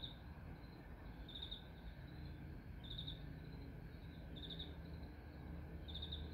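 Faint cricket chirping: short pulsed chirps repeating about every one and a half seconds, five in all, over a steady low hum.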